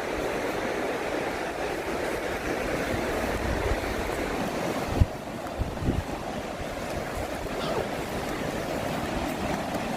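Ocean surf on a beach, a steady rushing wash of strong waves, with a sharp knock about halfway through.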